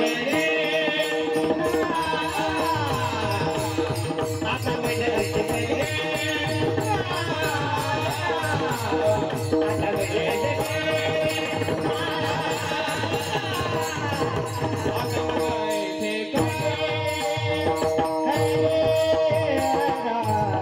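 Warkari devotional music: pakhawaj drum strokes and small hand cymbals keep a fast steady beat under a held drone and a gliding melody line.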